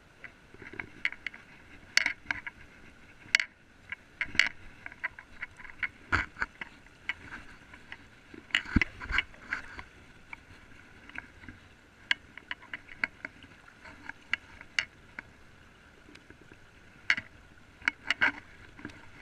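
Wading in a shallow, stony stream: water sloshing around the legs, with many irregular sharp knocks and clicks of footsteps on the stones.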